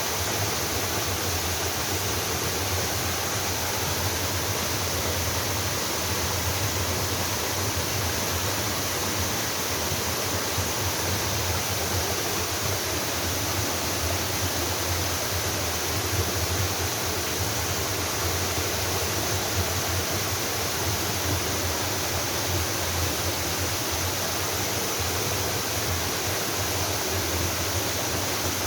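A waterfall pouring into a mountain stream: a steady, unbroken rush of falling and splashing water.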